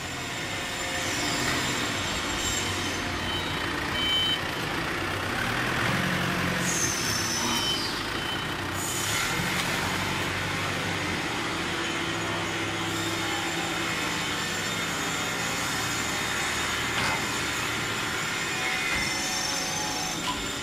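Plywood-making machinery running steadily with a low hum and a mechanical din. A few brief high squeals slide down in pitch in the middle.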